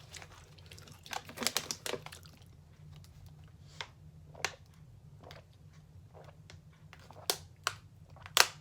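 Potato chips being bitten and chewed: scattered sharp crunches, bunched about a second in and again near the end, with quieter chewing between.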